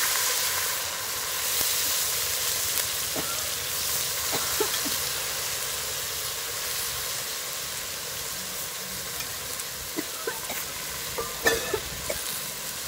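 Water splashed into a hot clay pot of chicken fry, setting off loud sizzling and hissing steam. The sizzle slowly fades, with a few sharp pops and clicks, the largest near the end.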